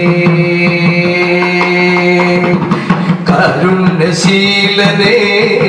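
A singer performing a Malayalam devotional song to Rama, holding one long note for about two and a half seconds, then taking up a new phrase that ends on the word "sheelane" near the end.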